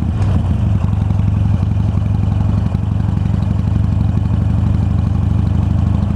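Harley-Davidson Iron 883's air-cooled V-twin engine running steadily under way, heard from the bike itself.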